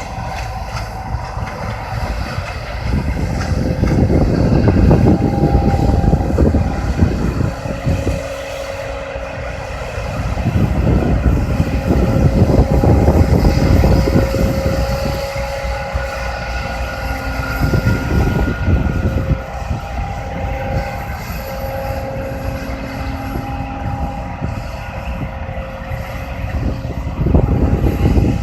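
John Deere C670 combine harvester working through a rice crop: a steady engine and machinery drone with a constant hum. A low rumble swells and fades several times.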